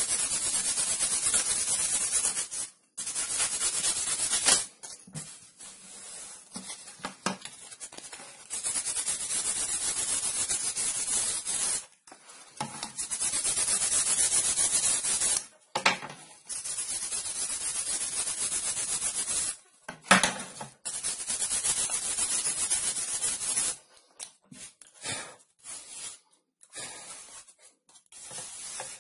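Sandpaper on a sanding block rubbing back and forth over a thin plywood fretwork panel: a steady scratchy sanding noise in stretches of a few seconds, broken by short pauses. Toward the end come shorter scrapes and a few knocks as the panel is picked up and turned.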